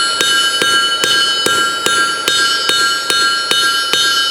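Hammer striking hot steel on an anvil to shape a chisel, steady blows about two and a half a second, with the anvil ringing on between strikes.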